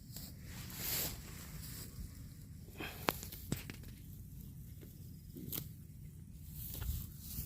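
A cow grazing, tearing up grass and chewing, in short rustling bursts with a couple of sharp clicks about three seconds in.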